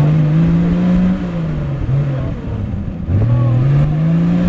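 Off-road race vehicle's engine revving in surges: the pitch climbs, falls away about a second in, gives a short blip near two seconds, then climbs again from about three seconds in.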